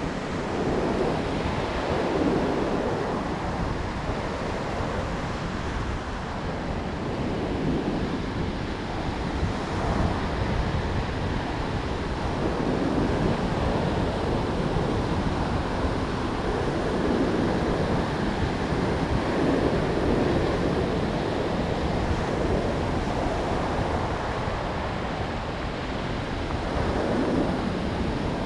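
Ocean surf breaking and washing up a pebble beach, surging and easing every few seconds, with wind rumbling on the microphone underneath.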